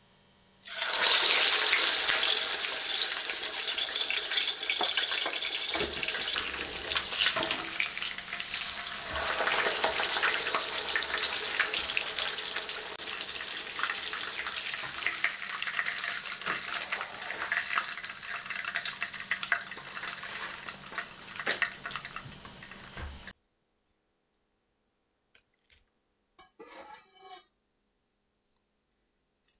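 Breaded pork cutlet (tonkatsu) deep-frying in oil in a frying pan, its second fry after resting, sizzling with many small crackling pops. The sizzle sets in loudly about a second in, slowly dies down, and stops abruptly about 23 seconds in.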